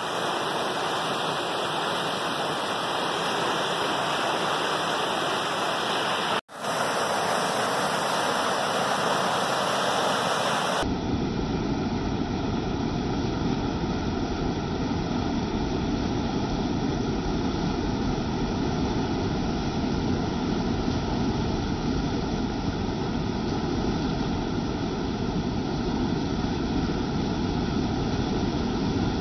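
Canal water rushing steadily over a low masonry weir and churning into white water below. There is a brief dropout about six seconds in, and about eleven seconds in the rush becomes fuller and deeper.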